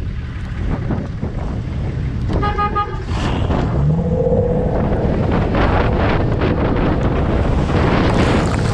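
Toyota FJ Cruiser's 4.0-litre V6 running, with a car horn tooting once briefly about two and a half seconds in. From about three seconds on the engine pulls harder and louder as the truck drives through mud and standing water, with mud spraying and wind buffeting.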